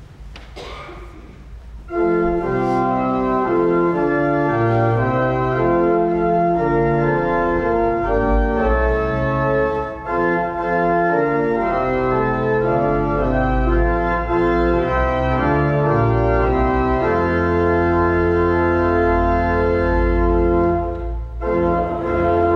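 Church organ entering about two seconds in and playing a hymn in sustained full chords over a deep pedal bass. This is the introduction before the congregation sings. It breaks off briefly near the end.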